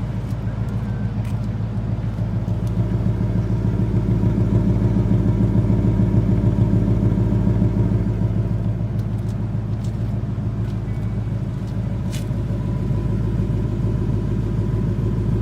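A 2018 Ford Mustang GT's 5.0 L Coyote V8 idling during its cold-start warm-up, a steady low rumble. It swells a little a few seconds in, then eases back as the fast idle calms down.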